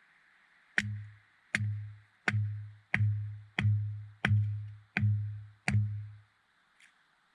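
Electronic kick-drum beat: eight deep thumps, each with a sharp click at its start, evenly spaced about 0.7 s apart, stopping about six seconds in.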